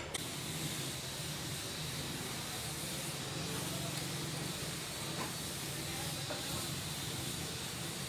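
Steady hiss of compressed air from an air tool, starting abruptly.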